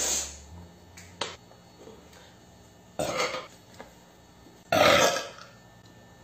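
A woman burping loudly three times: once at the start, again about three seconds in, and a third, the loudest and longest, about five seconds in. A short click about a second in.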